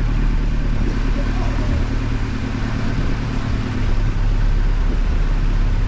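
Boat taxi's engine running steadily, a constant low hum under a wash of noise.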